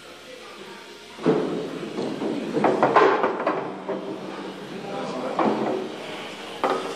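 A miniature-golf ball rolling and knocking along the course's lanes, starting suddenly about a second in, with people talking nearby.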